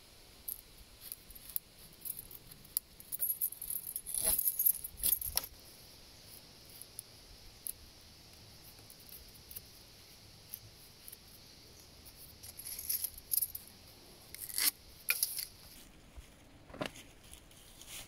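Green withies and sticks creaking, snapping and rustling in short crackly bursts as they are woven into a stick-frame camp chair, over a faint steady high hiss.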